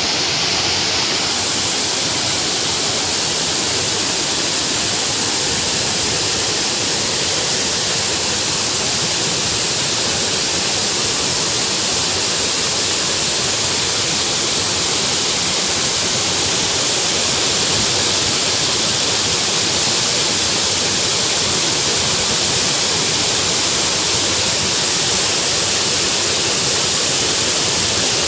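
Rushing water of a mountain stream: a steady, loud rush with no breaks.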